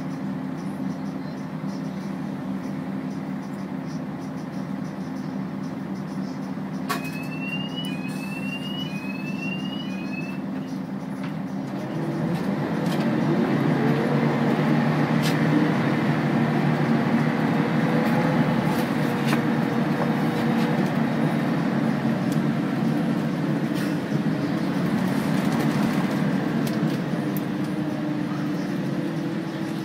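Volvo B10BLE bus's diesel engine idling, heard from inside the saloon, then about twelve seconds in revving up as the bus pulls away, its note rising under acceleration and staying louder. Just before it moves off, four short rising electronic beeps sound.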